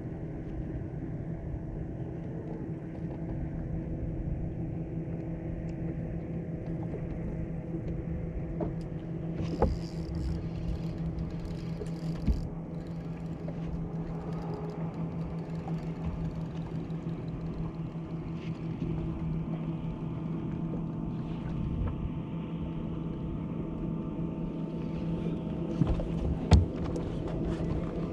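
Bow-mounted electric trolling motor humming steadily over a low wash of water and wind noise, with a few short knocks on the boat, the loudest near the end.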